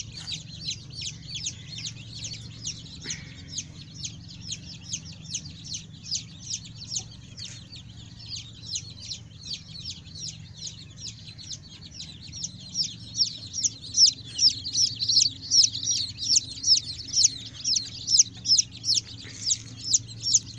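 A crowd of newly hatched chicks peeping without pause, many short high peeps overlapping, growing louder about two-thirds of the way through.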